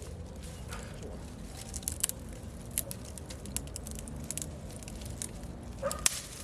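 Irregular sharp crackles and crinkling from cardboard and kindling at a smoky campfire that is still being coaxed to catch.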